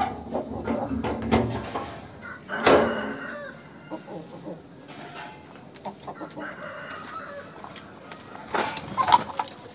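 Aseel chickens clucking and calling, with a rooster crowing among them. The loudest sound comes sharply about three seconds in, and another burst of calls near the end.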